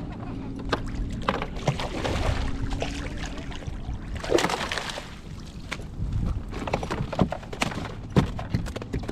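A hooked skipjack thrashing and splashing at the water's surface as it is scooped into a landing net beside a kayak, with a louder splash a little over four seconds in. Short knocks and rattles follow as the net and the fish are lifted aboard.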